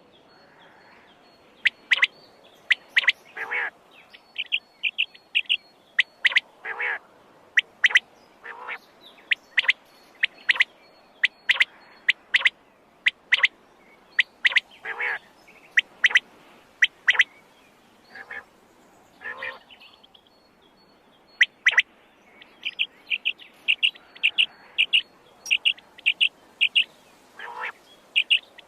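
Quail calling over and over: short, sharp whistled notes, some singly and some in quick runs of several, with a few longer, lower and fuller calls in between.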